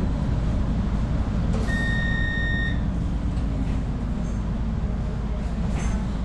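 Steady low rumble inside a light-rail tram, with a single electronic beep about a second long near two seconds in.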